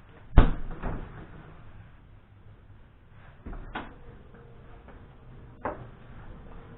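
Knocks and clunks of items being put back into a refrigerator, with shelves or drawers being handled. Three separate knocks: a loud one about half a second in with a brief rattle after it, and two lighter ones, near the middle and near the end.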